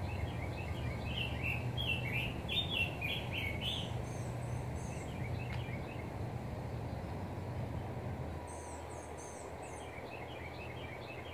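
Songbirds singing in repeated short chirping phrases, clustered in the first few seconds and again near the end. A low steady hum underneath drops away about eight seconds in.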